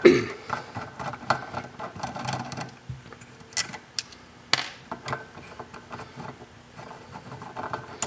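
Hand screwdriver backing small screws out of the bus-capacitor terminals inside a variable frequency drive: quick metal-on-metal clicks and scraping of the driver tip in the screw heads, with a few sharper clicks as the loose screws are handled and set down on the bench.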